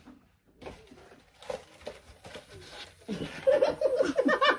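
Quiet at first, then a young woman laughing loudly from about three seconds in.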